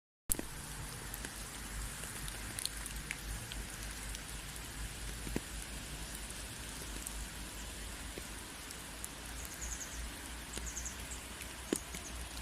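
Steady rain falling, an even hiss with scattered individual drops ticking on a surface and a low rumble beneath. A brief cut to silence right at the start before the rain resumes.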